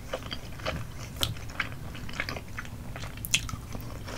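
Close-miked chewing of chewy Korean rice cakes (tteokbokki) in a sticky spicy cheese sauce: irregular mouth clicks and smacks, with a couple of sharper ones about a second in and a little past three seconds.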